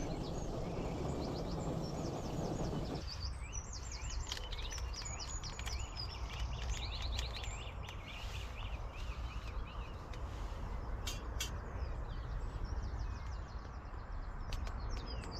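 Birds singing: many quick, repeated high notes and trills, over a steady low background rumble. A band of rustling noise stops about three seconds in.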